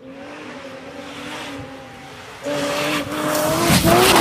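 Rally car engine approaching, holding one steady note and becoming much louder about two and a half seconds in. Near the end it rises briefly in pitch, and harsh skidding tyre noise comes in as the car reaches the camera.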